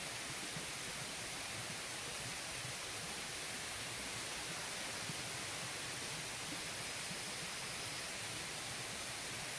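Steady rushing of flowing water from a small mountain waterfall and stream, an even hiss with no change in level.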